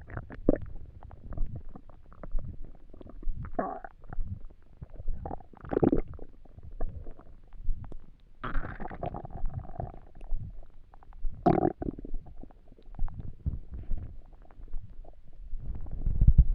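Empty stomach rumbling, heard up close: a steady run of low gurgles and squelches, with a longer gurgle a little past the middle and louder rumbling starting near the end.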